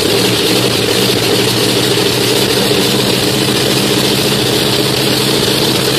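Pratt & Whitney R-4360 Wasp Major, a 28-cylinder four-row radial aircraft engine, running steadily on a test stand with no propeller fitted.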